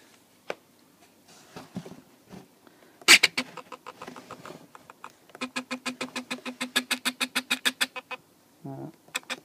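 A hobby servo driving the flying wing's elevon in short rapid steps, buzzing in an even train of about ten pulses a second for nearly three seconds, as its travel limit is stepped outward. A sharp knock comes about three seconds in.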